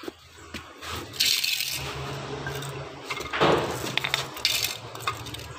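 Metal clattering and scraping as a car alternator's housing and stator are handled and set down on a wooden block, with a few sharp clinks about four seconds in. A low steady hum runs underneath.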